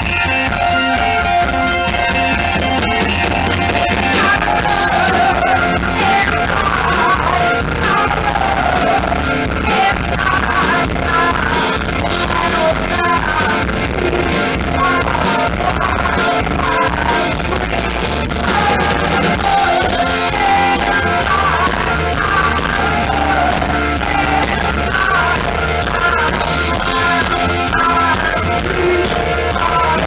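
Live rock band playing, electric guitar and band with a female lead singer whose vocal comes in a few seconds in. Loud and full-sounding, captured on a camera microphone with poor audio quality.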